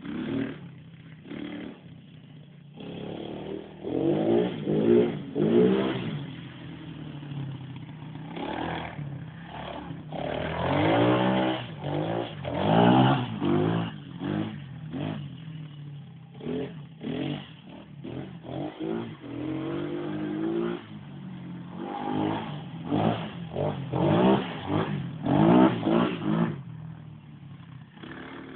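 ATV engine revving up and easing off over and over as the throttle is opened and closed, its pitch climbing and falling in repeated surges over a steady low running note.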